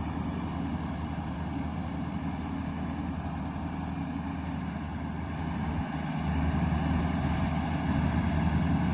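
Goose GS1028E tracked combine harvester running as it cuts rice: a steady low engine drone that grows louder about six seconds in.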